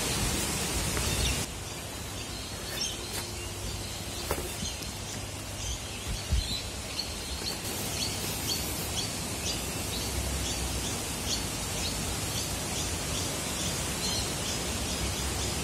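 A bird calling with short, high chirps repeated every half second or so, over a steady outdoor rushing noise that is louder for the first second or two.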